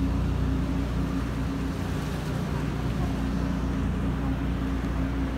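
Tour boat's engine running steadily: a constant low drone with a steady hum, with wind and water noise over it.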